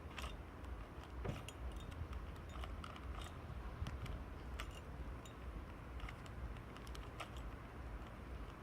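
Plastic Rubik's Cube being twisted by hand: a string of short, irregular clicks as its layers are turned, over a steady low rumble.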